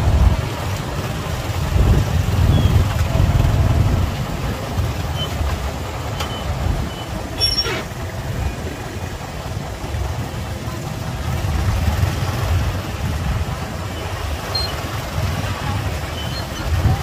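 Motorbike and car engines idling and creeping in slow, jammed traffic: a steady low rumble, with a few short high-pitched beeps.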